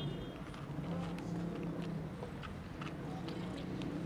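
A cat chewing dry kibble: small irregular crunches throughout, over a steady low hum.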